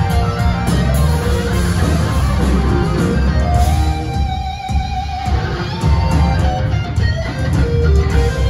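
Live blues-rock band playing an instrumental passage on electric guitars, bass guitar and drums, loud through the venue's PA. About halfway through, the band briefly drops back to a single held note, then comes back in full.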